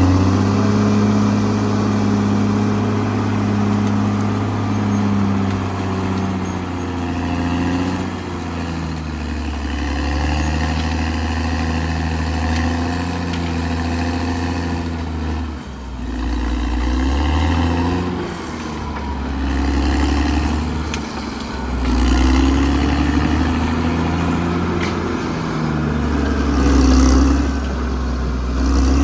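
Diesel engine of a Caterpillar D6R XL crawler bulldozer running under working load, its pitch rising and falling every few seconds as the load changes.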